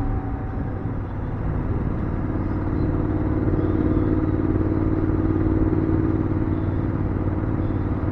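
BMW F750GS's 853 cc parallel-twin engine running steadily while riding along, with wind and road noise; the engine note picks up slightly about three seconds in.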